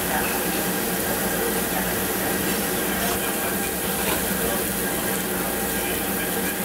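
A person slurping cold noodles partway through, over a steady hiss that runs throughout.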